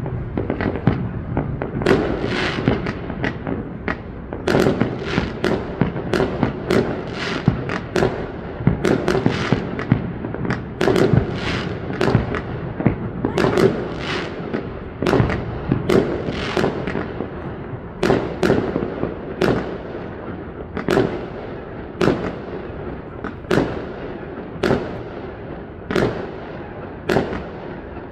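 Aerial fireworks shells bursting one after another in a steady barrage, about one to two sharp bangs a second, each trailing off in an echoing crackle.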